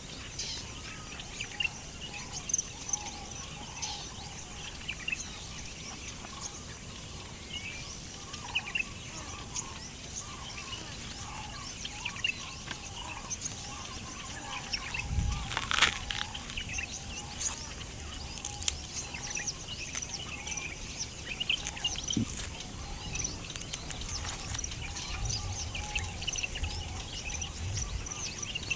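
Small birds chirping and calling continually, with a low thump about halfway through and scattered sharp clicks after it.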